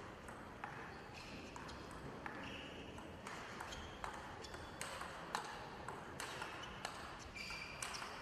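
Table tennis rally: the ball clicking off rackets and table in a quick back-and-forth exchange, about two sharp hits a second, each with a short ringing ping.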